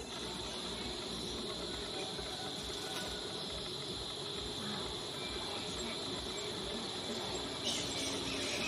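Steady insect chorus, a continuous high buzz over a low rumble, growing louder and hissier near the end.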